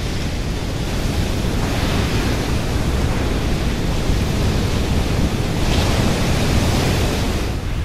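Heavy waves breaking on a shore: a continuous rush of surf that swells louder about two seconds in and again around six seconds in.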